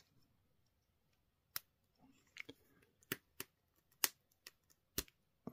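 Scattered small plastic clicks and taps, about half a dozen at uneven intervals, as an action figure's plastic staff is handled and pushed into the figure's hand.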